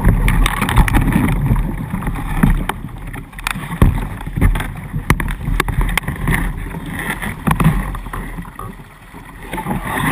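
Plastic hull of a Dagger Mamba kayak knocking and scraping against rock as it is worked by hand through a narrow gap between boulders: irregular sharp knocks over a steady rush of water.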